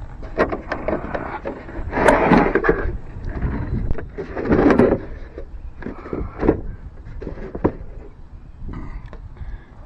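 Hard plastic tool case being handled on wooden boards: a run of clicks and knocks from its latches and lid as it is opened, with two louder scraping, rustling spells about two seconds and four and a half seconds in.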